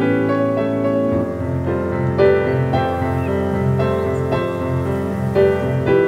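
Background piano music: a flowing run of notes, with a lower part that grows stronger and pulses from about a second in.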